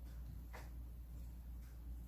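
Faint, brief rustle about half a second in as pieces of pan-fried jeon are handled and set into a ceramic casserole pot, over a steady low hum.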